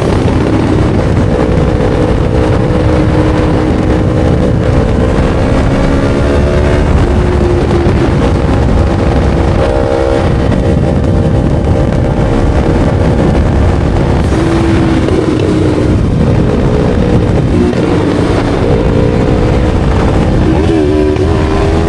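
2017 Yamaha R3's parallel-twin engine running at a steady cruise while riding, its pitch dipping and rising slightly every few seconds with the throttle, over a low rush of wind.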